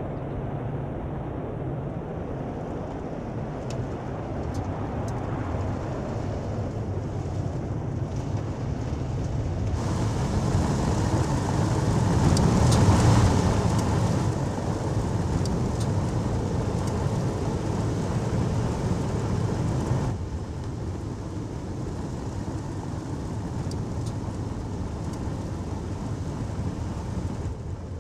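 Ford F-150 Lightning electric pickup driving: tyre and wind noise with no engine note, swelling to its loudest about 13 seconds in. The sound shifts sharply about ten seconds in and again about twenty seconds in.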